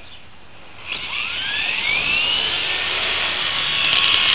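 WL Toys V912 electric RC helicopter spooling up for takeoff. About a second in, its motor starts with a whine that rises in pitch as the rotor comes up to speed, then settles into a steady high whine as it lifts off, with a few sharp clicks near the end.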